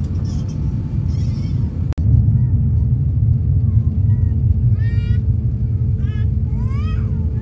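Airliner cabin noise while the plane taxis: a steady low rumble of the jet engines and rolling, under a faint steady hum. It breaks off for an instant at an edit about two seconds in and comes back louder, and a few short high-pitched gliding sounds come through near five and seven seconds.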